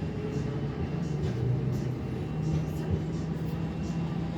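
Tesla Model 3's novelty fart sound played through the car's speaker: a long, low buzzing rasp that wavers in pitch.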